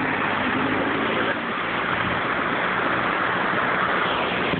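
Floodwater rushing in a steady, loud wash of noise, typical of a drain being cleared.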